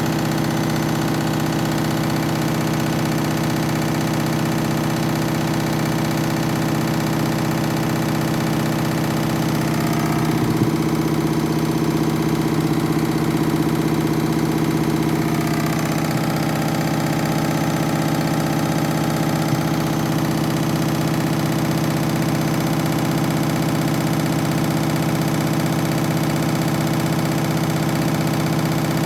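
Washing machine drum spinning on its final spin with a badly unbalanced load: a loud, steady hum.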